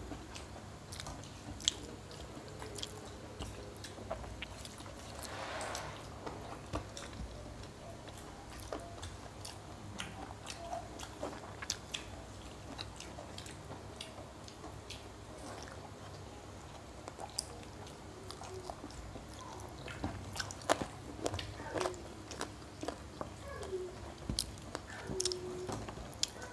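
Close-up eating sounds of two people eating rice and chicken curry with their hands: chewing and mouth smacks, with scattered sharp clicks of fingers and food on steel plates.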